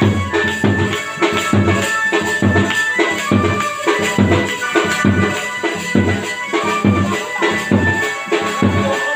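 Music with a steady, regular percussive beat and sustained melodic tones.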